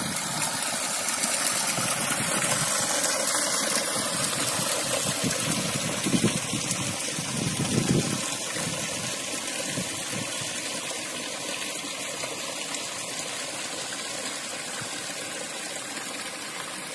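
Water gushing from an outlet into a pool: a steady rushing that slowly fades.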